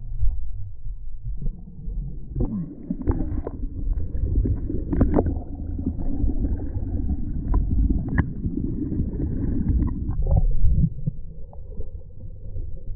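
Muffled low rumbling with scattered sharp knocks and clicks, as heard through an action camera's waterproof housing being handled in shallow water. The knocks cluster in the first half, and the sound thins about ten seconds in.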